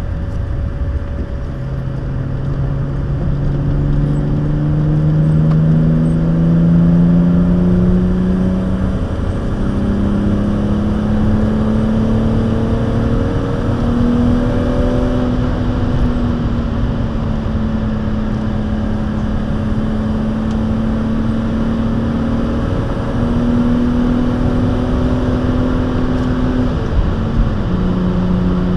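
Cabin sound of a 1996 BMW E36 323i's straight-six, fitted with a stainless aftermarket exhaust, pulling hard at speed. The engine note climbs under acceleration over the first several seconds, falls back about nine seconds in, then holds fairly steady before dropping again near the end, with road and wind noise throughout.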